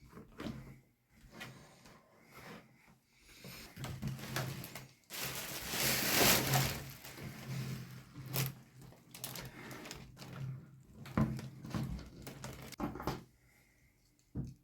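Handling of toy-figure packaging: rustling of plastic and cardboard, with a longer stretch of rustling about five seconds in and scattered clicks and knocks.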